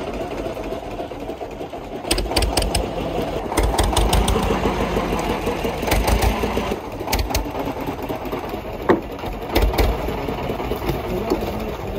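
Fishing boat's engine running steadily, with a few short knocks along the way.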